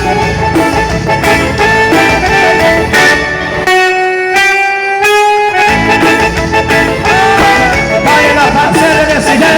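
Instrumental opening of a forró dance song, with held melody notes over a steady bass beat. The bass drops out for about two seconds midway, then returns.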